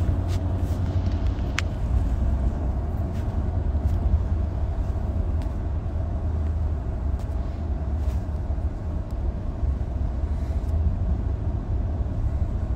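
Steady low rumble of a car heard from inside its cabin, with a faint click about a second and a half in.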